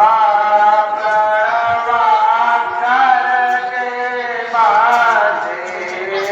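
Voices chanting in long, held notes that bend slowly in pitch, a new phrase starting about four and a half seconds in.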